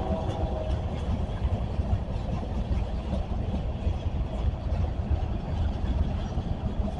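Train rolling past with a steady low rumble and faint clicking of wheels over the rails, just after its horn has died away.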